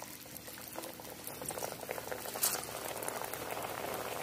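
A piece of spinach-and-potato snack just slid into hot oil in a steel kadhai, sizzling and crackling as it starts to deep-fry. The crackle grows steadily louder, with one sharper pop about two and a half seconds in.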